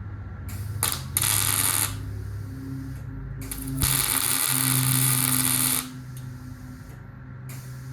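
Welding arc on car sheet metal: a short burst of crackling hiss about a second in, a longer one of about two seconds midway, and another starting at the end, with a steady low hum between the welds.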